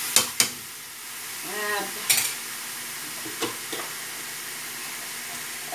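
Chicken pieces and sliced onion sizzling steadily in a metal wok over a gas flame, with a few sharp clicks of a utensil against the pan: two near the start, one about two seconds in, and two more a little later.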